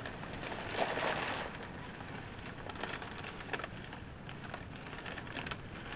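Paper rustling and crinkling as packing is handled, with scattered small clicks; it is a little louder in the first second and a half.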